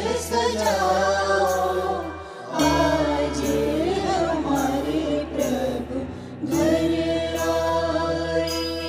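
Jain bhajan music: a wavering, gliding melodic line over a steady low bass and a regular beat, breaking off briefly twice, with long held notes in the latter part.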